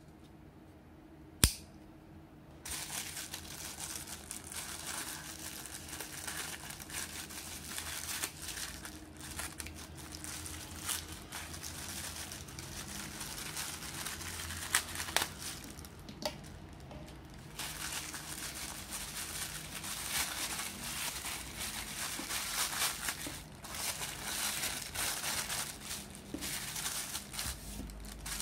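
Plastic mailer bag crinkling and rustling as it is handled and slit open with a folding knife, then a clear inner plastic bag crinkling. A single sharp click about a second and a half in.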